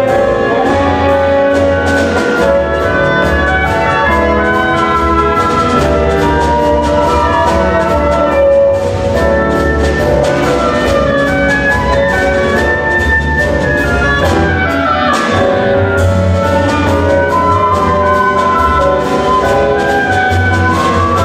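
Woodwind quintet (flute, oboe, clarinet, French horn and bassoon) playing a fast Brazilian frevo with piano, double bass and drum kit: busy interweaving wind melodies over a strong bass line and steady drumming.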